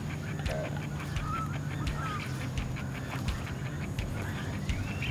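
Birds calling, with low honking calls and a few short higher chirps, over a constant low hum and scattered sharp clicks.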